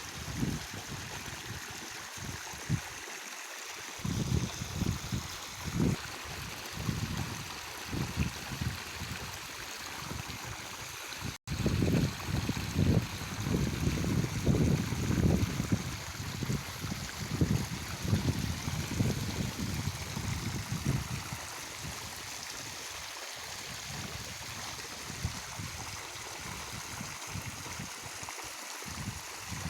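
Irrigation water flowing steadily along a field furrow, with irregular low rumbles throughout; the sound cuts out for an instant about eleven seconds in.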